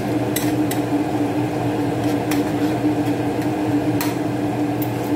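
A steady motor hum from a kitchen appliance with a strong constant low tone, under a few light clicks and scrapes of a metal spoon stirring sauce in a frying pan.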